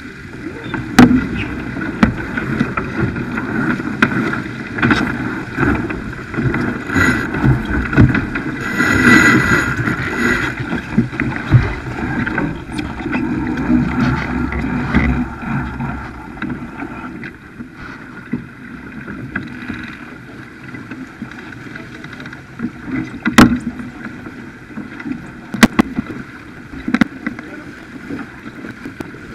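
Racing sailboat (Farr 280) under way through a tack: water rushing along the hull and wind buffeting the microphone, louder in the first half. Scattered sharp clicks and knocks from deck gear and crew, two of the loudest near the end.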